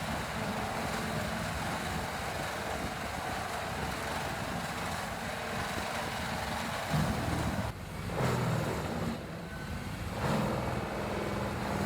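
Large wood grinder's engine running steadily, with a noisy rumble; the sound shifts about seven seconds in and again near eight seconds.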